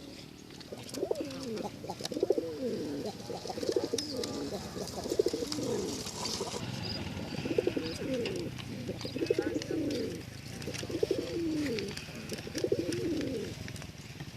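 Domestic racing pigeon cooing: a run of low coos that rise and fall, repeating about once every second or so.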